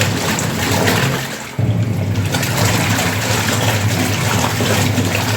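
Single-tub washing machine running its rinse cycle: the motor hums and the water sloshes in the tub. The motor stops briefly about a second and a half in, then starts again abruptly.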